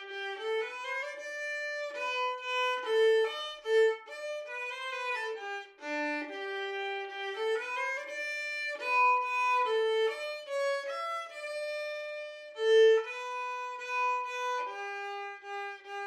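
Background music: a solo melody on a bowed string instrument, a single line of held notes that sometimes slide into the next, with no accompaniment.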